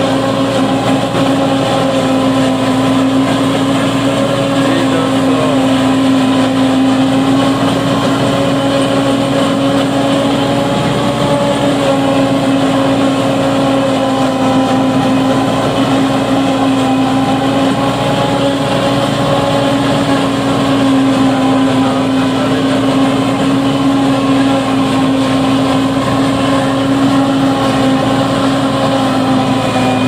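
Tractor diesel engine running under load, driving a forage harvester that chops standing maize and blows the chopped silage through its spout. It makes a loud, steady drone with one strong unchanging hum.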